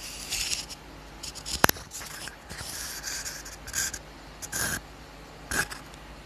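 A series of short, uneven scraping and rubbing strokes on a surface, with one sharp click about one and a half seconds in.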